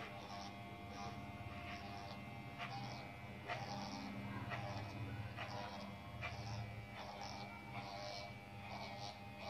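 Corded Wahl electric hair clipper buzzing steadily as it trims hair, with a short crackle every second or so as the blades cut through hair.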